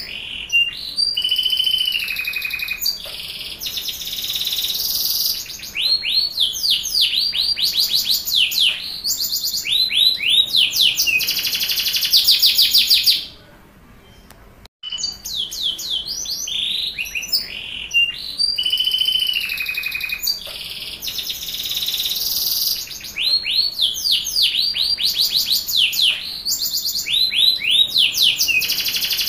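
Domestic canary singing a long song of rapid rolling trills and quick sweeping whistled notes. About halfway through it stops for a second or two, then the same song starts over.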